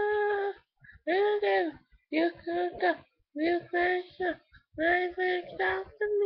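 A young girl singing unaccompanied, in a string of short held phrases with brief silent gaps between them.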